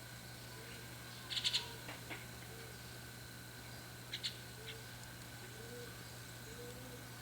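Young white-cheeked starling calling: a quick run of about four short, high calls a little over a second in, a single call just after, then two more short calls around the middle.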